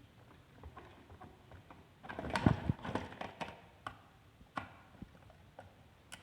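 Irregular plastic-and-metal clicks and knocks of hand work on a table socket, with a screwdriver driving tapping screws into the socket casing. The knocks come in a cluster about two seconds in, with one sharp knock near the middle.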